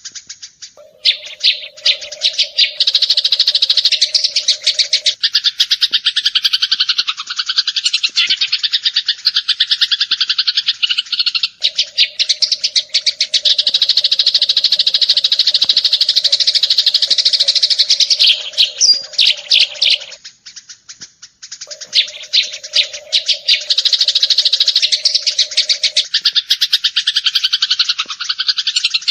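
Eurasian tree sparrows chirping in a dense, rapid, unbroken stream of overlapping chirps, with a short lull about two-thirds of the way through. A steady low drone comes and goes underneath.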